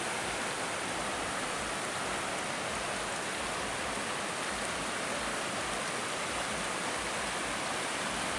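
Steady rush of a waterfall and the stream flowing over rocks.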